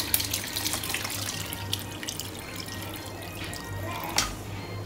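Sorrel drink pouring in a steady splashing stream from a stainless steel pot through a plastic strainer into a plastic bowl, with small drips and clicks.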